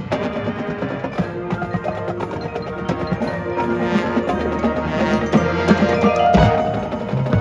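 High school marching band playing its field show, with the front ensemble's mallet percussion and drums prominent among sustained band chords. A single loud accented hit comes about six seconds in.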